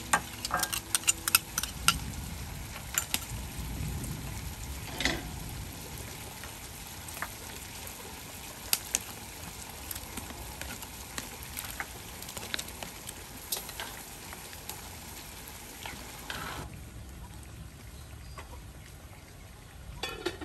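A pot of chicken soup boiling over a wood fire: a steady bubbling hiss with a quick run of sharp clicks and clinks in the first two seconds and scattered ones after. The hiss thins suddenly near the end.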